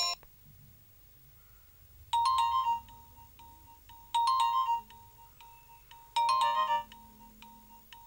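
Smartphone ringing tone for an outgoing call, heard while the call is alerting: a short trilling burst repeated three times, about two seconds apart.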